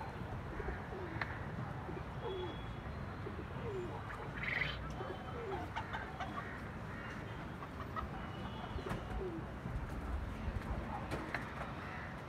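Pigeons cooing: a series of short, low coos repeating every second or so, over a steady low background rumble. A brief, sharper, higher sound stands out about four and a half seconds in.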